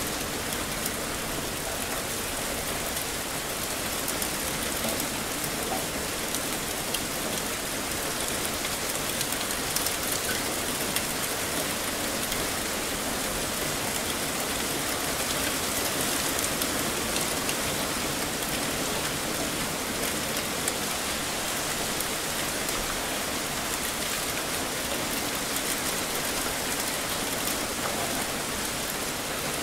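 Heavy rain falling steadily: a dense, even hiss with scattered sharp ticks of individual drops.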